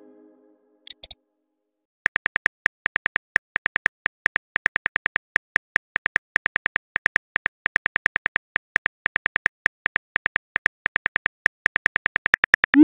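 Keyboard typing sound effect of a texting app: a fast, uneven run of small clicks, about six a second with brief pauses, as a message is typed out. Two quick high blips come about a second in, before the typing starts.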